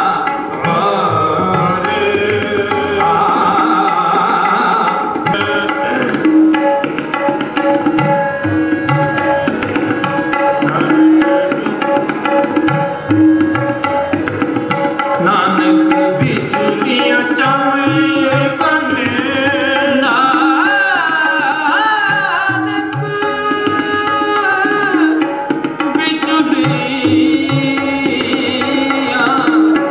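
Sikh kirtan accompaniment: harmoniums holding and moving through a melody while a tabla keeps a steady rhythm beneath them.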